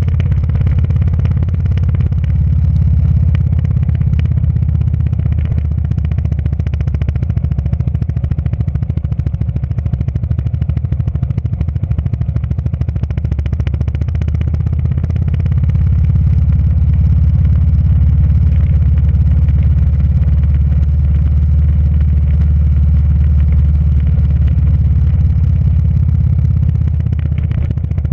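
Motorcycle engine running steadily while riding a gravel road, heard through an onboard camera, with a deep low rumble and some rattle from the rough surface. It grows a little louder about halfway through.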